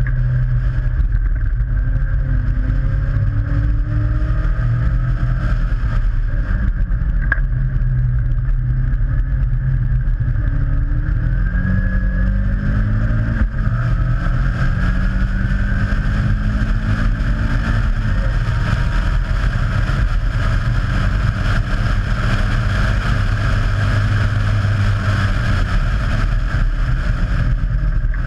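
Onboard sound of a Caterham Seven racing car's Ford Sigma four-cylinder engine, run hard on track. It climbs in pitch several times and drops back at each gear change, over heavy wind buffeting on the microphone in the open cockpit.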